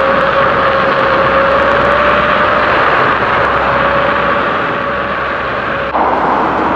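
Steady rush of wind and rolling wheels while riding, with a high electric-motor whine that climbs slightly and then holds. The sound shifts abruptly about six seconds in.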